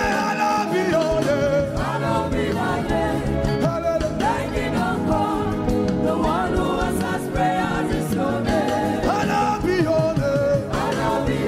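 Live gospel worship song: a lead singer and a group of backing singers singing together over band accompaniment.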